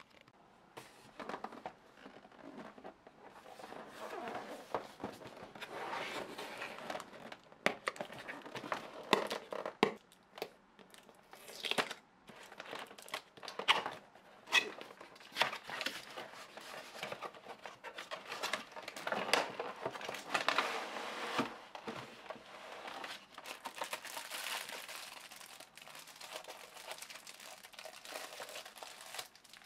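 Cardboard box being opened and unpacked by hand: flaps and card scraping and tapping, with paper and plastic wrapping crinkling and several sharp knocks.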